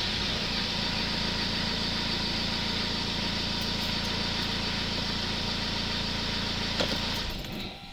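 2008 Ford Focus 1.8 TDCi four-cylinder diesel idling steadily at about 1,000 rpm, heard inside the cabin, having started cleanly with no sign of the start-and-die fault. It is switched off about seven seconds in and the sound dies away.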